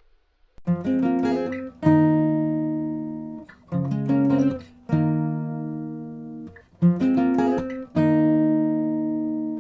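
Acoustic guitar music: short runs of plucked notes, each ending on a chord left to ring and fade, starting about half a second in.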